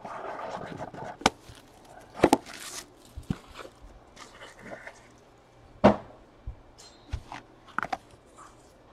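Trading cards and plastic card holders being handled on a table: a soft rustle at the start, then a string of sharp clicks and taps, the loudest a few seconds apart.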